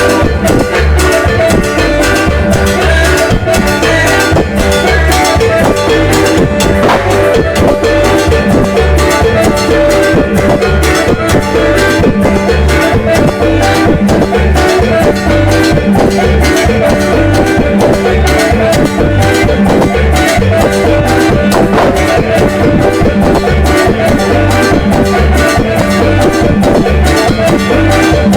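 Electronic keyboard playing upbeat Latin dance music, with a steady bass-and-drum beat under sustained melody tones.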